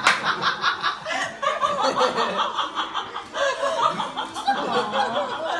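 People laughing at length. It opens with a quick run of giggles, then goes on with looser laughter, and cuts off abruptly at the end.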